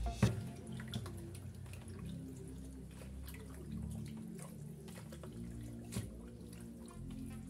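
Scattered water drips and small splashes in a stainless-steel kitchen sink, with a louder knock just after the start and another about six seconds in.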